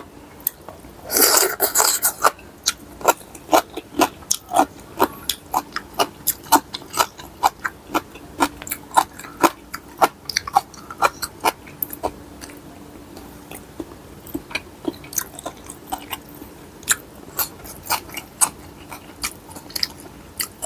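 A person chewing and crunching food close to the microphone: sharp, irregular mouth clicks and crunches, about one or two a second, with a louder, denser crunch between about one and two seconds in.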